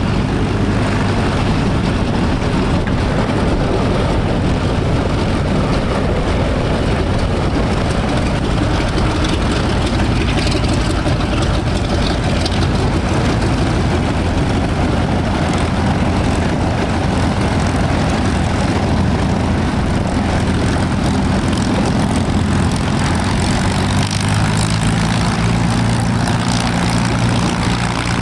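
Piston engine of a WWII propeller fighter running with a steady, loud drone, its low engine tone growing clearer near the end.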